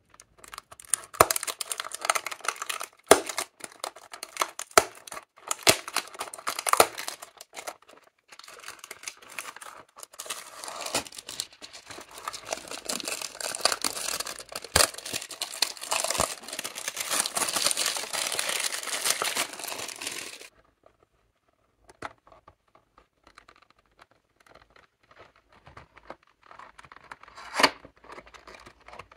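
Clear plastic shrink wrap being torn and peeled off a cardboard lipstick box, a dense, continuous crinkle for about twenty seconds. It then drops to a few scattered taps and scrapes as the box is opened, with one louder rustle near the end.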